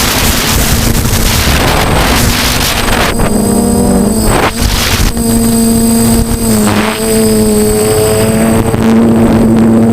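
DJI F450 quadcopter's electric motors and propellers humming, heard from a camera mounted on the craft. Wind rushes over the microphone for the first few seconds, and then a steady hum that wavers in pitch with the throttle comes through, broken by short gusts.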